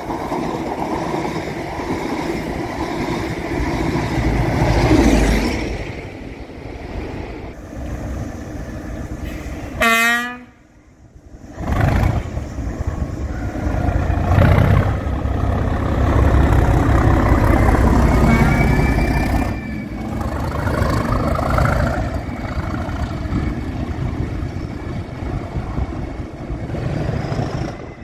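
Colas Rail Class 37 diesel-electric locomotive passing through under power, its English Electric diesel engine running loud and low. A short horn blast sounds about ten seconds in, after which the sound briefly cuts out before the engine noise returns.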